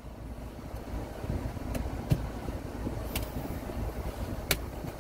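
A coin prying at the metal crown cap of a glass Coke bottle, giving about four sharp clicks, over the low steady rumble of a car cabin.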